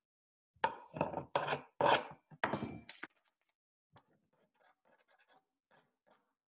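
A spoon rubbed hard along a paper fold to crease it: about six quick scraping strokes in a row, stopping about three seconds in, after which only faint rustles remain.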